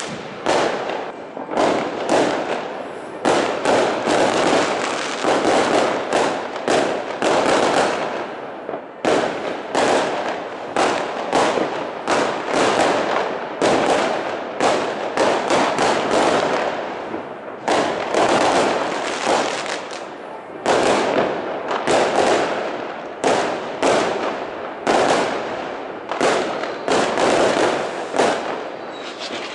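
Fireworks going off without a break: rockets bursting among many other bangs and crackles. A loud bang comes about once a second over a constant crackling.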